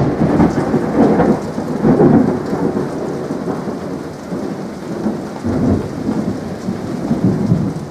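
A continuous rumbling, crackling noise, much like thunder with heavy rain, swelling loudest about a second and two seconds in.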